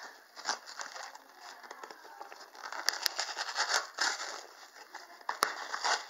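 Cardboard shipping box being torn and pulled open by hand, with irregular rustling and crinkling of cardboard and packaging and a few sharp clicks.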